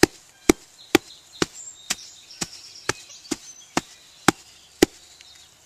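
Refilled hole's soil being packed down: about eleven sharp strikes at a steady pace of roughly two a second.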